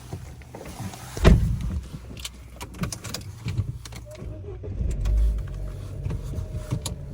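A car door slams shut about a second in. Clicks, knocks and shuffling follow as people settle into the car, over a low rumble. Another door slams near the end.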